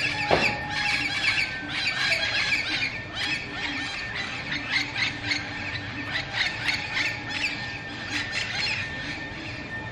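A flock of wild parrots calling together, a dense run of overlapping harsh squawks and screeches that goes on without a break.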